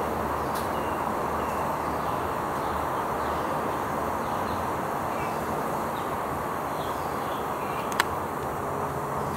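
Steady outdoor background noise, an even wash with faint bird chirps scattered through it. A single sharp click comes about eight seconds in.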